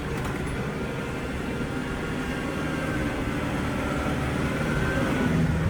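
Kubota 4060 compact tractor's diesel engine running steadily while clearing snow, growing slightly louder toward the end.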